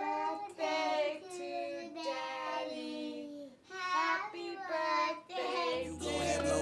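A child singing alone, unaccompanied, in several held phrases with gliding pitch. Backing music with a steady low bass comes in near the end.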